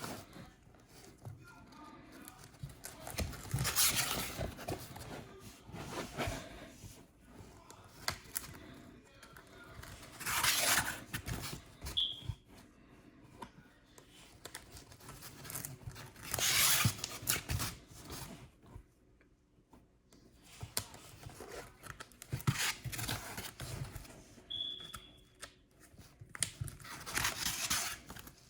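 Pages of a trading-card binder being turned one at a time: a rustling swish about every five or six seconds, with soft handling sounds between.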